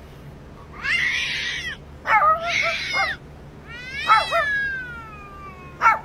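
A cat yowling in several bursts: two harsh, hissy calls in the first three seconds, one long falling meow about four seconds in, and a short pair of calls at the end.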